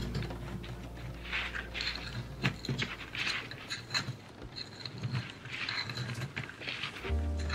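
Metal tweezers poking and scraping gritty potting granules in a small clay pot, with many small irregular clicks and scratchy rattles of the grit.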